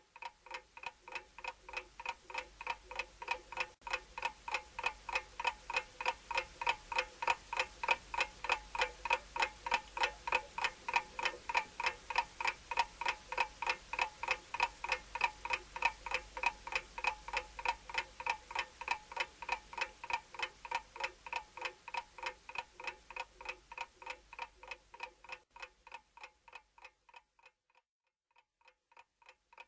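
Clock ticking steadily, a few ticks a second, growing louder over the first several seconds and fading away near the end.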